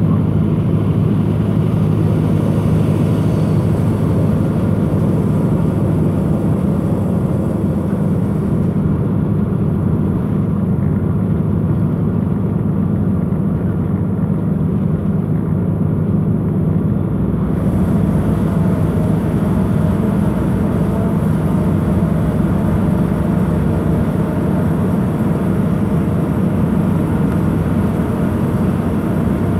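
Steady drone of a vehicle driving along: engine hum and road noise heard from inside the cab, unchanging throughout.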